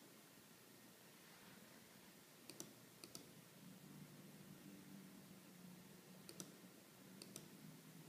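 Near silence: room tone with four pairs of faint, sharp clicks and a faint low hum in the second half.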